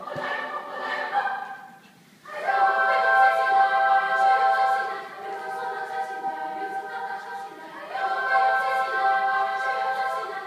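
A large school choir singing held chords in a concert hall. It drops out briefly just before two seconds in, comes back on a loud sustained chord, and swells again about eight seconds in.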